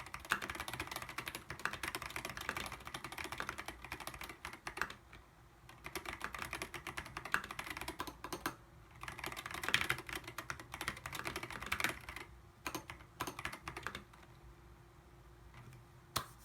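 Typing on a mechanical keyboard with unlubricated Zealios 62g tactile switches and dev/tty keycaps: fast runs of key clicks with a short pause about five seconds in, thinning to scattered single keystrokes in the last few seconds.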